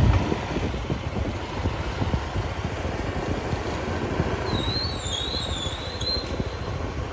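Motorcycle being ridden: a steady low engine and road rumble. About halfway through comes a thin, wavering high-pitched squeal that lasts about two seconds.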